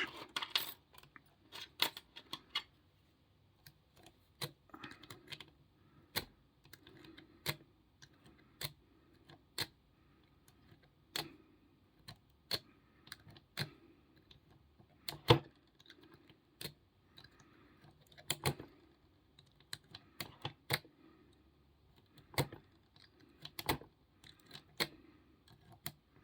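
Lock picks working a Ruger pin-tumbler padlock: irregular small metallic clicks and faint scraping as the pick moves across the pins, with a few sharper clicks, some of which may come from the lock opening and being reset.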